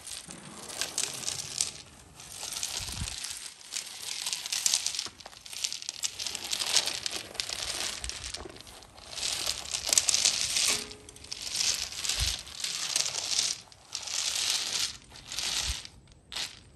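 Nut Roller's wire-cage basket rolling back and forth over artificial turf, gathering hazelnuts. It makes a rustling, crinkling scrape in about a dozen strokes of roughly a second each, with the nuts clicking and rattling in the cage.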